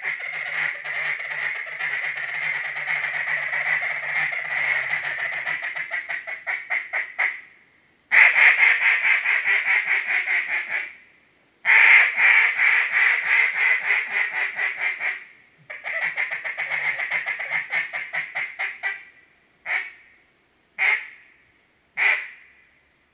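DRC Harlot acrylic duck call blown as a mallard hen. It opens with about seven seconds of fast choppy feed chatter, then three long, loud runs of quacks that each trail off, and ends with four single quacks about a second apart.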